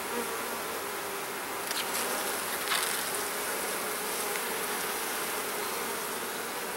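Honeybees buzzing around a frame lifted from an open hive: a steady, even hum, with a couple of faint clicks about two and three seconds in.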